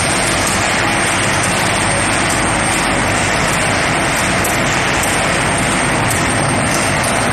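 Steady, loud industrial roar of an electric induction furnace running, with a thin, constant high-pitched whine held over it.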